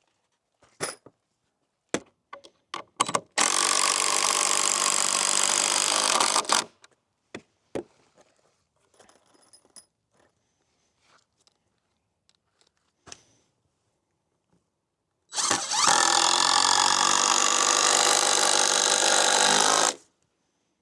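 Power drill driving screws through 2x6 blocks into wooden beams: two steady runs, about three and five seconds long, with scattered clicks and knocks between them.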